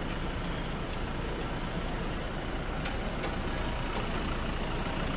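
Steady low rumble of workshop and vehicle background noise, with a few light metallic clicks about three and four seconds in.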